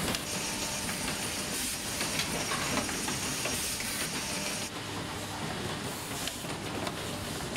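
Semi-automatic USB-C connector soldering machine running: a steady hiss of compressed air with light clicks and rattling. The high hiss drops off about two-thirds of the way through.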